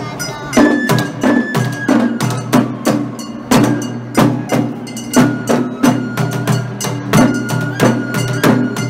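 Japanese festival ohayashi music: taiko drums struck in a steady, driving beat, with a high bamboo flute playing a melody of held notes over them.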